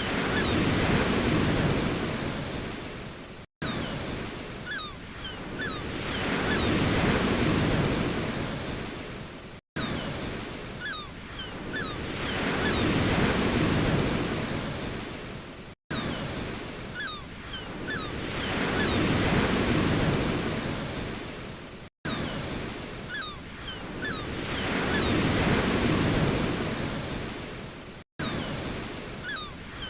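Ocean waves washing onto a shore, each wave swelling up and draining away. The recording is a short loop of about six seconds, with a brief gap at each join, and faint high chirps come near the start of each loop.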